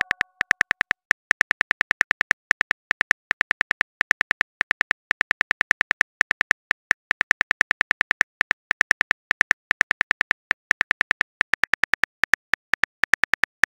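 Phone on-screen keyboard typing clicks, as a chat-app sound effect: a rapid, uneven run of short, sharp taps, several a second, one for each letter typed.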